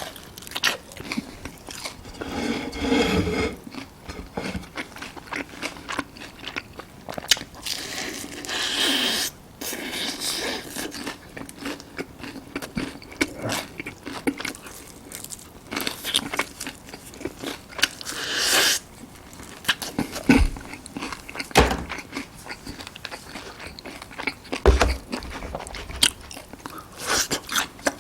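Crispy honey-glazed fried chicken (Kyochon Honey Combo) bitten and chewed close to the microphone, with repeated crackly crunches. A few low thumps come in the second half.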